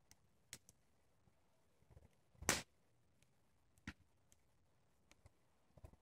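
Wood fire and burning dry grass crackling, with occasional sharp pops: the loudest snap about two and a half seconds in, another near four seconds, and a few small ticks between.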